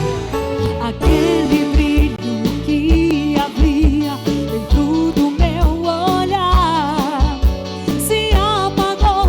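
Live band music: a lead voice holding long notes with wide vibrato over a steady kick-drum beat and sustained accompaniment.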